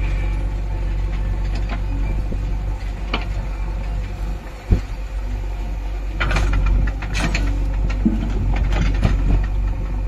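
JCB 3DX backhoe loader's diesel engine running steadily while it works its arm. There is a sharp knock about halfway through. A little after six seconds in, clattering follows as a bucketful of clods and earth tips into a steel tractor trailer.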